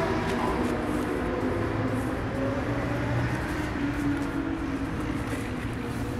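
Steady city traffic noise with a low vehicle hum, slowly fading.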